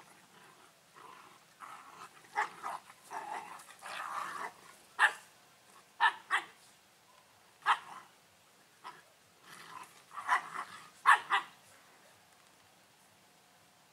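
Two black village dogs play-fighting, growling at first and then letting out a run of short, sharp barks.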